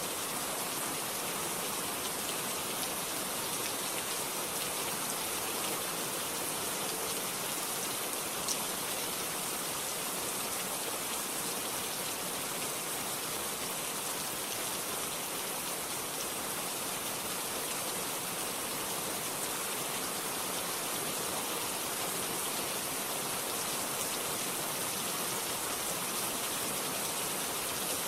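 Steady rain falling without thunder, an even hiss of drops on a surface, with one faint drop click about eight seconds in.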